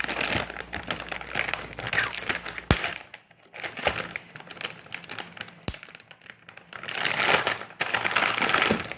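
Plastic packaging of frozen dumplings crinkling and rustling as it is handled and opened, with a couple of sharp clicks and louder crinkling near the end.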